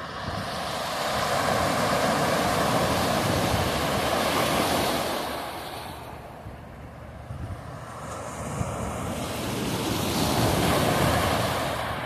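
Small waves breaking and washing up a pebble beach in two surges, the first swelling in at the start and the second about seven seconds later.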